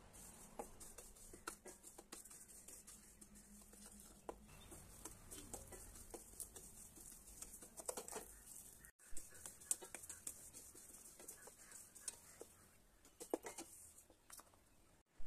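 Wooden spatula stirring and scraping broken wheat rava around a dry stainless steel pan: faint, irregular scrapes and light clicks of the grains against the metal.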